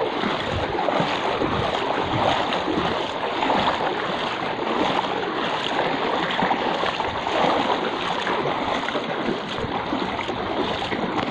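Floodwater sloshing and swishing around legs as people wade through it, over the steady rush of the flowing current.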